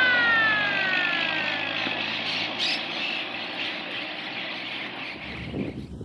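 Rail motor car's horn sliding steadily down in pitch and dying away within the first two seconds, over the car's running noise, which fades as it moves off. About five seconds in, wind buffets the microphone.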